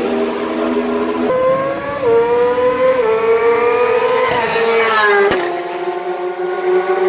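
Superbike engine running at high revs as the bike accelerates up the straight, its note climbing with a couple of brief dips as it shifts gears. The pitch drops quickly as it passes about five seconds in, and then carries on lower as the bike moves away.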